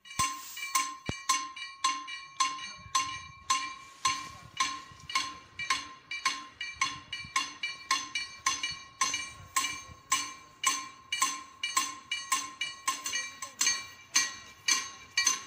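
Level crossing warning bell ringing in rapid, evenly spaced strikes, each with a clear metallic ring: the crossing's warning that a train is approaching.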